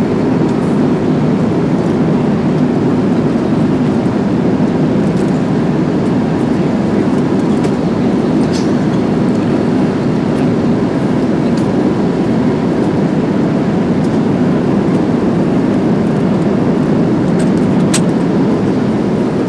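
Airliner cabin noise: a steady, loud low hum of engines and rushing air, with a couple of faint clicks.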